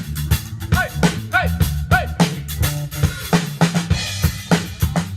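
Rock band's instrumental passage, with the drum kit to the fore: steady bass drum and snare beat over a bass line, and a few short bent notes between about one and two seconds in.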